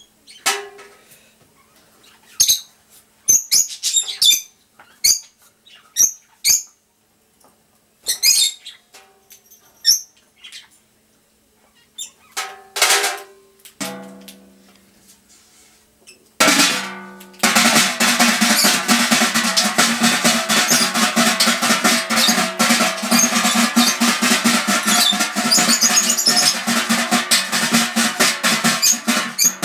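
Scattered knocks and clicks as a striped tin container is handled, then, about sixteen seconds in, a sudden dense rattle of very rapid strikes, like a drum roll, that keeps going without a break.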